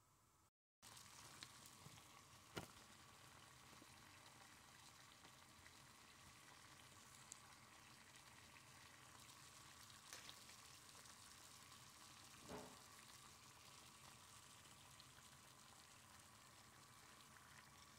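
Water boiling in a saucepan on the stovetop: a faint, steady bubbling hiss that starts abruptly about a second in, with two small knocks.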